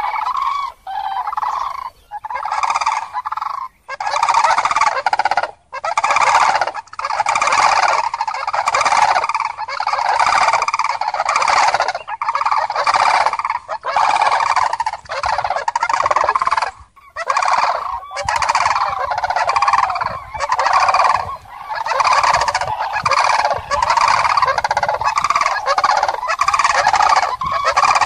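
A flock of common cranes calling: loud, rolling trumpeting calls overlapping almost continuously, pulsing about once a second with brief dips between.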